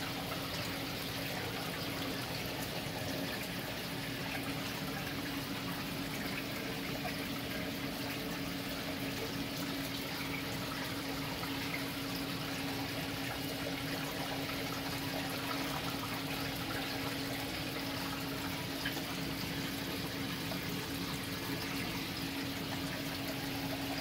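Steady rush of circulating water with a constant low pump hum from a saltwater aquarium's pump and powerhead system.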